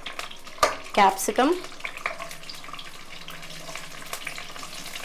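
Cashews and chopped green capsicum frying in hot oil in a non-stick kadai, with a steady crackle and sizzle of many small pops as the pepper pieces are dropped in. A single sharp knock comes a little over half a second in.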